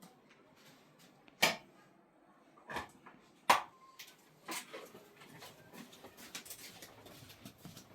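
Several sharp knocks and clinks of hard objects, the loudest about one and a half and three and a half seconds in, followed by a run of quieter small clicks and rustles.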